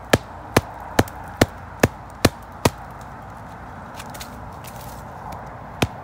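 A wooden stake being driven into soil, struck on top with a log used as a mallet: sharp wood-on-wood knocks, about two and a half a second, seven strikes, then a pause of about three seconds before the blows start again near the end.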